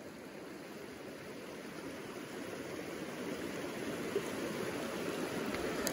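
Shallow river water running over a rocky bed: a steady rushing that grows gradually louder.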